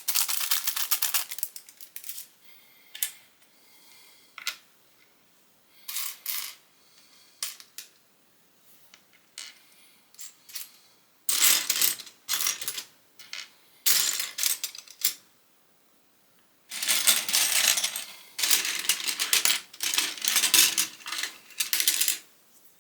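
Small plastic Lego pieces clattering and clicking as they are handled, with separate sharp clicks at first and two longer spells of dense rattling in the second half.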